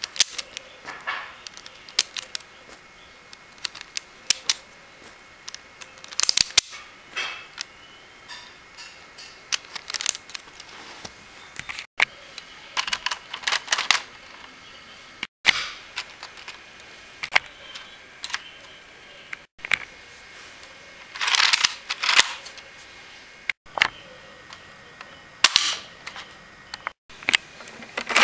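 Plastic mechanism of a brick-built Lego AKS-74U model gun clicking and clacking as it is worked by hand and fired: scattered sharp snaps, with several short rattling clusters of clicks.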